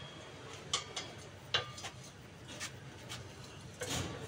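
A few sharp metallic clicks and taps, unevenly spaced, as a hand tool knocks against the muffler's mounting hardware and the exhaust pipe under the car. Some of them ring briefly.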